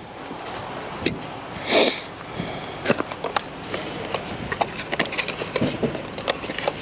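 Scattered light clicks and knocks with a short rustle just before two seconds in: a person handling and unpacking a replacement HVAC contactor from its box.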